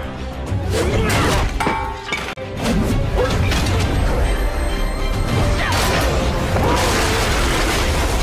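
Fight-scene soundtrack: music running under impact effects, blows and crashes.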